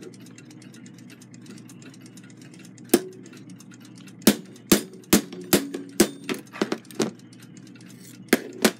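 About a dozen sharp metal-on-metal taps on a clock movement's center arbor, struck with a makeshift hammer to drive the cannon pinion off. There is one tap about 3 s in, a quick run of taps in the middle and two more near the end, each ringing briefly. The pinion does not come free.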